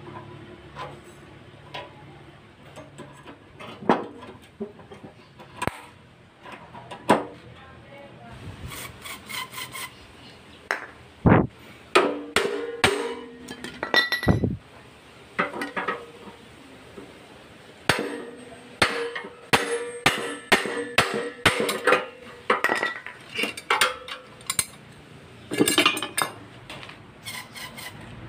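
Hand tools on metal motorcycle parts: irregular metal knocks and clinks, some with a short ring, coming more often from about a third of the way in.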